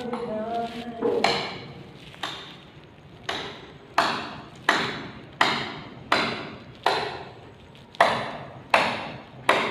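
Hammer blows, about eleven sharp strikes a little under a second apart, each ringing briefly.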